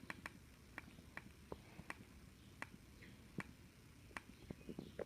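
Faint, irregular small clicks and ticks from handling a Pokémon trading card booster pack.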